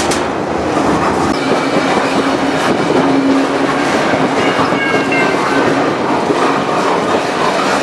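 Freight train under way, heard from aboard an intermodal well car: steady running noise of steel wheels on rail, with a few faint high tones coming and going in the middle.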